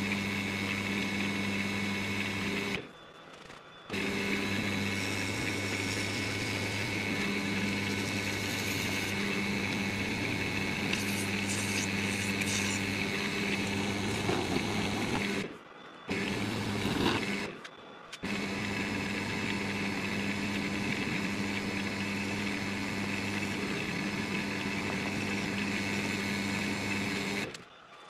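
Wood lathe running steadily, its motor humming, while a turning tool scrapes and cuts the spinning crayon-wax blank, busiest in the middle. The sound cuts out abruptly three times, briefly each time.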